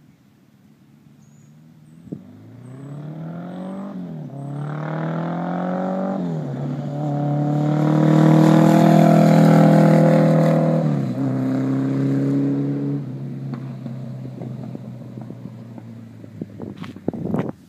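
Honda Gold Wing's 1100cc flat-four motorcycle engine through aftermarket sport-bike mufflers, accelerating with pitch climbing through two gear changes. It passes loudest about halfway, then drops in pitch and fades as it rides away. A brief loud crackle comes just before the end.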